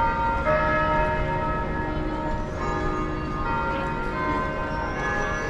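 Bells chiming a slow run of notes, each ringing on and overlapping the next, over the steady noise of a busy city square.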